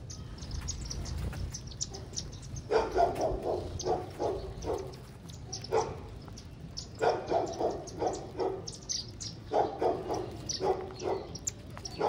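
Silverbills and sparrows chirping: many short, high chirps in quick succession throughout. Louder, lower-pitched calls come in quick runs of four to six, several times over, and sound like yapping.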